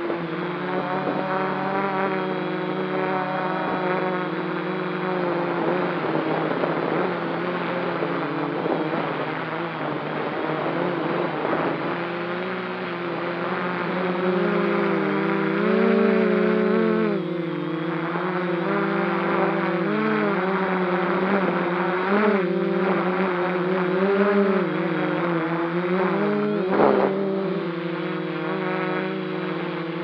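Quadcopter drone's propellers and motors buzzing steadily in flight. The buzz's pitch wavers up and down as the drone manoeuvres, with a brief knock near the end.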